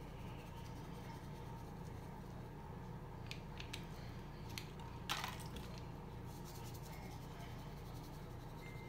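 Faint handling of a paper Kool-Aid drink-mix packet as powder is shaken from it: a few soft clicks and one short crinkle about five seconds in, over a steady low hum.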